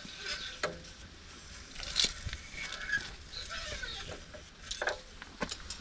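Light metallic knocks and clicks as a steel pipe is handled and set into a cut-off saw's vise, the loudest about two seconds in, with quiet between them.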